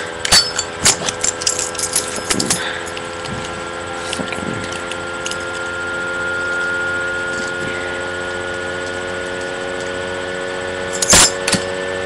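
Zippo lighter being worked: a quick run of sharp metal clicks and snaps over the first three seconds as it is flicked and struck, then one loud snap near the end, over a steady hum.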